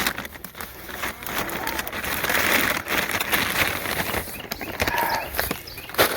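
A flock of hens at their feed: soft clucking over a steady rustle, with many scattered clicks and taps.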